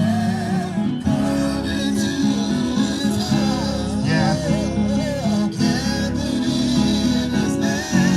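Church worship music led by guitar over sustained low notes, with a wavering melody line on top.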